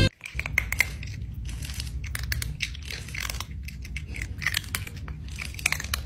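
Cat chewing and crunching food: irregular crunches and clicks, over a low steady hum.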